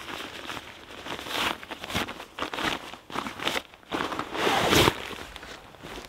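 Rustling and crinkling of nylon fabric as gear and a stuff sack are pulled out of a backpack, in irregular handling noises with a louder rustle about four and a half seconds in, along with a few footsteps on the forest floor.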